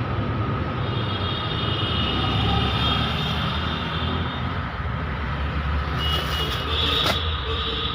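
A motor vehicle running, a steady low rumble, with faint level high tones over it through the first half and again from about six seconds in.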